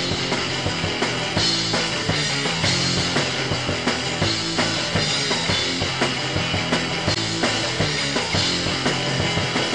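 Rock music with a drum kit keeping a steady beat, playing under end credits.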